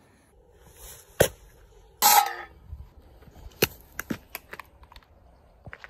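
A drinks can cracked open with a sudden short hiss about two seconds in, after a single sharp click; then a quick run of clicks and knocks as the camera is handled.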